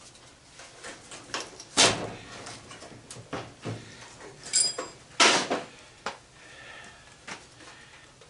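Sheet-metal fan housing and hand tools being handled: a series of knocks and scrapes, the loudest about two seconds in and just past five seconds, with a short metallic ring near the middle.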